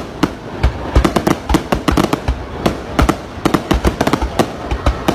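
Fireworks going off in a dense barrage: a rapid, irregular string of sharp bangs and cracks, several a second.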